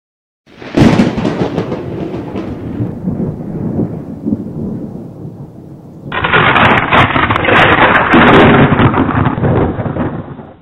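Thunderstorm sound effect: a thunderclap cracks about half a second in and rumbles away. About six seconds in, a louder stretch of thunder and rain noise cuts in and stops suddenly near the end.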